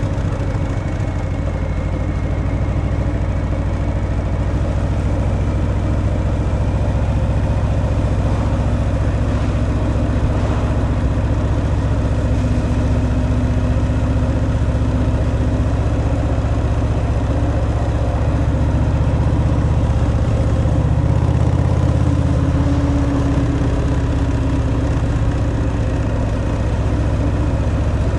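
Harley-Davidson Fat Boy's V-twin engine running steadily through its stock exhaust, swelling a little about two-thirds of the way through.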